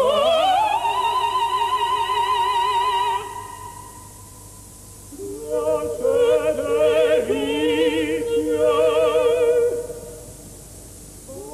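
Soprano and tenor opera voices singing with wide vibrato. A high note is held for about three seconds, then after a short lull the voices move together through quick changing notes for about four seconds. A new held phrase starts right at the end.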